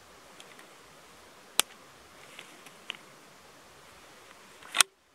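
Quiet outdoor hiss broken by a single sharp click about a second and a half in and a few lighter ticks, as a rifle is shifted on its shooting sticks. Near the end there is a louder clatter of handling, then a brief drop to silence.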